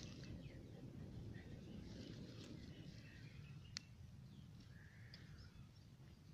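Faint outdoor ambience: a low steady rumble with scattered distant bird chirps, and one sharp click a little past halfway.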